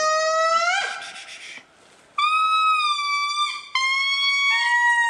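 Indri lemurs singing: long, loud wailing notes, like a horn. A held note rises at its end and breaks off about a second in. After a short pause comes a series of held notes, each lower in pitch than the last.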